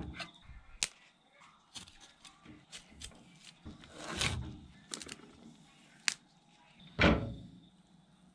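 Knife cutting broccoli stalks and leaves on a wooden chopping board: a series of short crunches and clicks, with a louder thump about seven seconds in.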